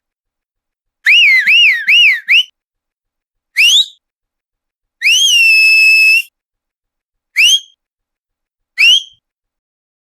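A person whistling with the mouth: a quick run of four up-and-down warbling notes, then a short rising whistle, a longer whistle that rises and then holds one pitch for about a second, and two more short rising whistles.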